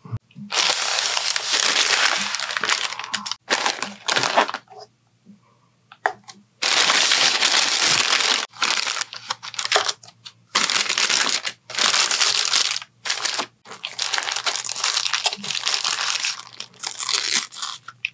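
Paper sandwich wrapper crinkling and rustling as it is unfolded and handled, in loud irregular bursts with short pauses, including one longer pause about five seconds in.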